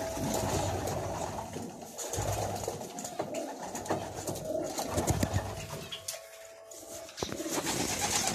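Racing pigeons cooing: several low coos repeated through the loft, with a sharp click near the end.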